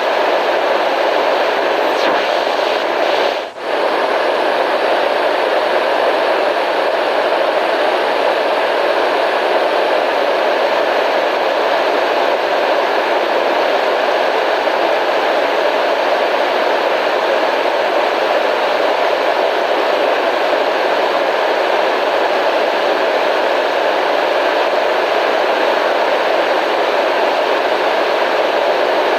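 Steady white noise, an even hiss, with a brief drop in loudness about three and a half seconds in.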